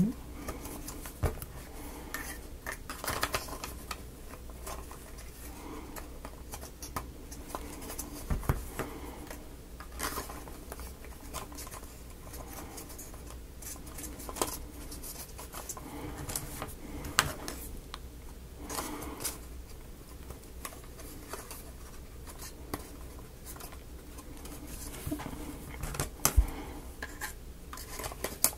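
Small wooden model-kit parts being handled and fitted together by hand, making scattered light clicks, taps and scrapes.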